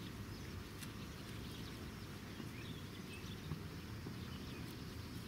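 Quiet outdoor ambience: a steady low rumble with scattered soft clicks and a few faint high chirps near the middle.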